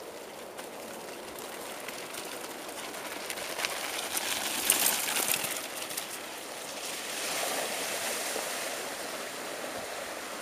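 Mountain bike tyres crunching and crackling over loose gravel, loudest about halfway through, then the wheels splashing through a shallow creek, with running water throughout.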